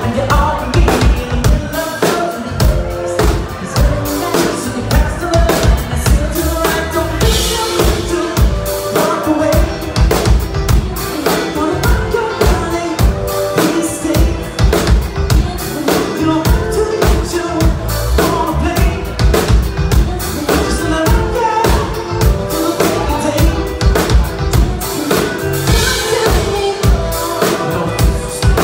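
Live band playing loudly: a man and a woman singing into microphones over a drum kit keeping a steady beat, with bass guitar and keyboard.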